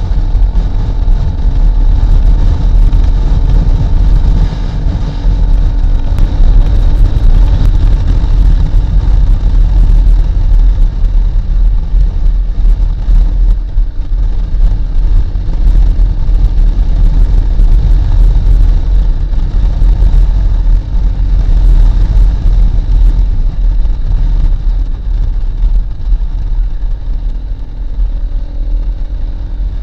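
Wind rushing over the microphone while a Honda CRF250L is ridden at road speed, with the bike's single-cylinder engine running underneath and its pitch shifting as the rider speeds up and slows for the bends.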